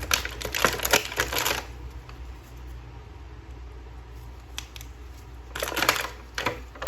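Quick plastic clicks and rattles from handling a plastic action figure and its packaging, in a dense cluster over the first second and a half and again near the end.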